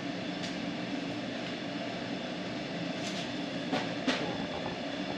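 Steady low mechanical hum with a few light clicks or knocks over it.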